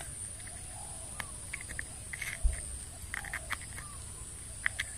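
Outdoor ambience: a steady high-pitched insect drone with short clusters of chirping animal calls. There is a single low thump about two and a half seconds in.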